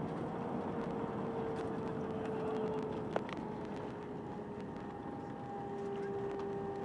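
Airliner cabin noise on an Airbus A320 coming in to land: a steady rush of air and engine noise under a steady whine that slides slightly lower, with a single sharp click about three seconds in and a second, higher whine joining after it.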